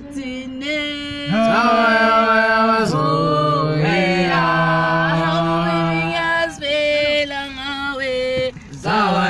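A group of young male voices chanting a song together, holding long notes in phrases with short breaks between them.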